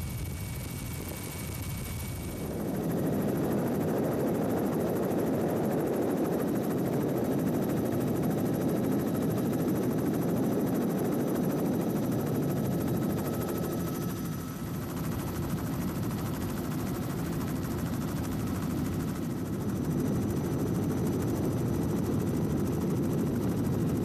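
Helicopter engine and rotor noise recorded aboard a news helicopter filming from the air. It is a steady, dense rumble that gets louder about two seconds in and shifts slightly in level where the footage changes.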